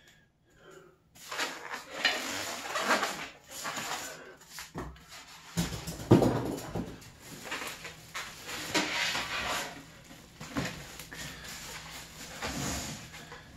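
Plastic wrap crinkling and styrofoam packing end caps rubbing as a computer case is pulled free of its packaging, with a thump about six seconds in.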